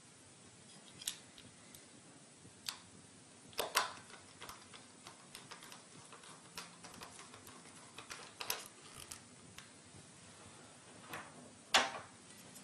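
Scattered small clicks and taps of screws being fastened into a hard drive sitting in a desktop's drive bracket, with a few sharper knocks, the loudest near the end.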